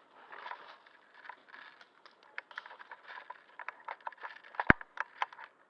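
Scattered, irregular sharp clicks and taps that grow busier after about two seconds, with one louder knock near the end.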